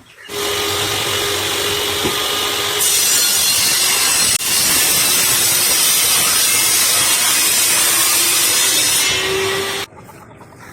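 Power tool cutting wood: a loud, steady cutting noise that starts just after the beginning, breaks off for an instant about four seconds in, and stops abruptly near the end.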